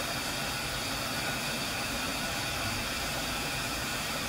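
Steady hiss of steam from a stationary 0-6-0 tank steam locomotive.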